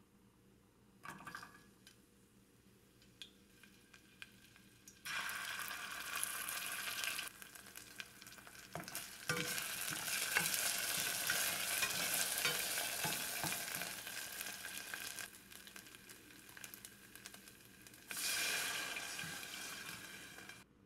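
Food sizzling in hot oil in a pan, starting about five seconds in, louder while it is stirred with scattered knocks of the utensil against the pan, then easing off and flaring up again near the end.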